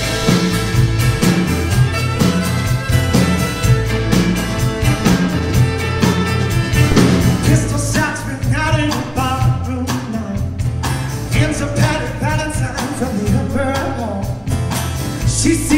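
Live acoustic guitar strumming and violin playing a folk-rock song, with a man's lead vocal coming in about halfway through.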